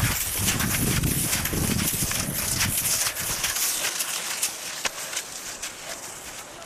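Rhythmic crunching and scraping on snow from a cross-country skier's skis and pole plants, close to the microphone, with a heavy rumble of movement and wind on the microphone that fades out about three seconds in.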